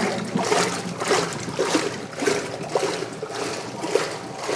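Water sloshing and splashing in the tub of a 1937 Maytag Model 30 wringer washer as its agitator works back and forth, in regular repeating swishes. The machine is running smoothly and quietly under its water test.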